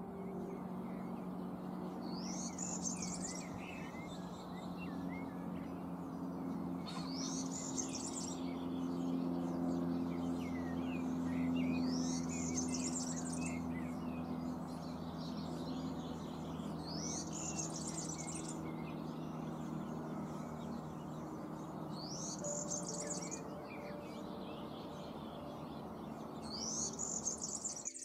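A songbird singing the same short, high phrase about every five seconds, over a steady background of low noise and a faint hum.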